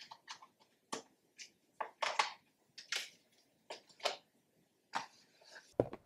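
Packaging crinkling and crackling in short, irregular bursts as it is picked open by hand. There is a single sharp knock near the end.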